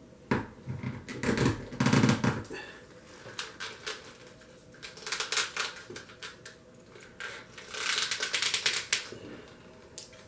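Hard plastic clicking and rattling as a sixth-scale action figure is handled and its head pulled off and swapped, in several short flurries of rapid clicks.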